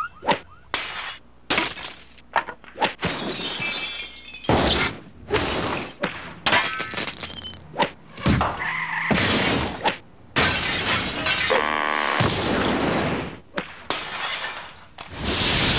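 A fast run of separate crashes, bangs and glass shattering, each one cut off sharply by the next. Near the end a steady, loud rushing noise takes over.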